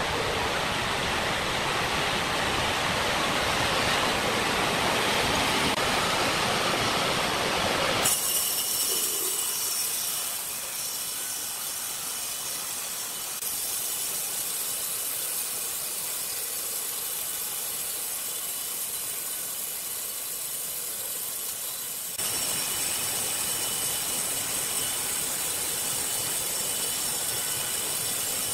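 Horizontal band sawmill cutting lengthwise through a large log: a steady hiss and whir of the blade running through the wood. The sound changes abruptly twice, about a third and about three quarters of the way through.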